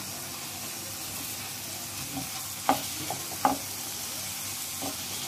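Chicken in oil and yogurt masala frying in a nonstick pan with a steady sizzle, while two wooden spatulas turn it, knocking and scraping against the pan a few times, loudest about two and a half and three and a half seconds in.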